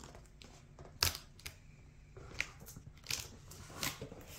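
Cardboard box being handled: a few separate knocks and scrapes against the cardboard, the sharpest about a second in.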